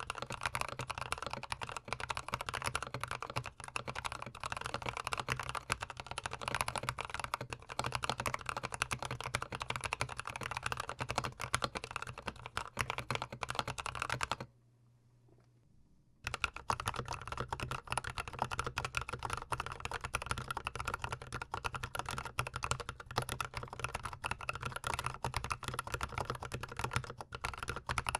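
Fast, continuous typing on Novelkeys Cream linear switches in a GMMK Pro keyboard, close-miked. It stops for about two seconds about halfway through, then resumes.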